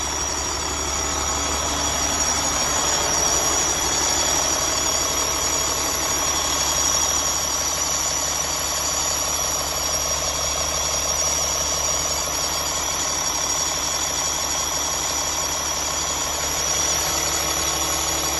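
Renault Kerax tipper truck's diesel engine idling steadily, heard close up in the open engine bay with the cab tilted forward.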